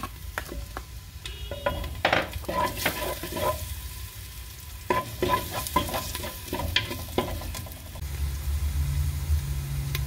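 Diced onion and minced garlic frying in oil in a clay pot, sizzling while a wooden spoon stirs them, with irregular scrapes and knocks of the spoon against the pot.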